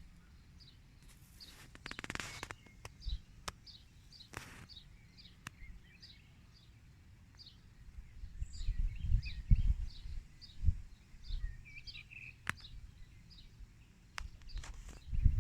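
A wild songbird singing a short high note over and over, about three a second, with low rumbling bumps on the microphone in the second half.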